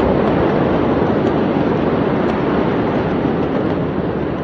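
Steady, even rushing noise with no distinct bangs: wind and a large distant fire heard through a phone microphone.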